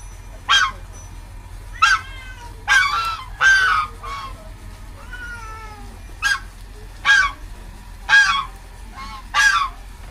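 Geese honking: a run of about nine short, harsh calls at uneven intervals, some in quick pairs, with fainter calls between them.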